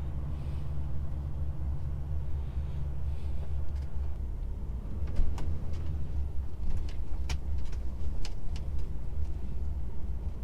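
Steady low rumble of a DAF XF truck's diesel engine, heard inside the cab. About halfway in come a scatter of sharp, irregular clicks.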